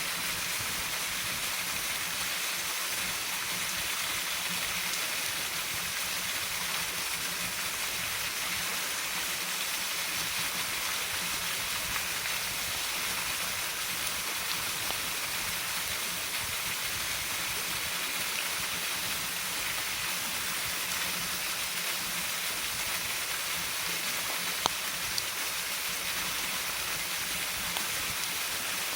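Waterfall rushing in a steady, even hiss, with a couple of brief sharp clicks near the end.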